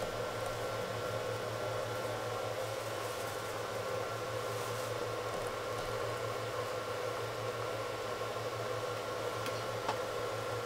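Steady mechanical hum with a constant hiss, like a small fan or motor running, with a faint tick near the end.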